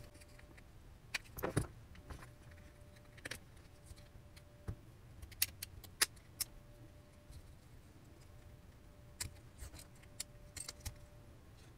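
Scattered small clicks and snaps of a plastic pry tool levering apart the plastic frame and circuit boards of a pocket Wi-Fi router, in short irregular bursts.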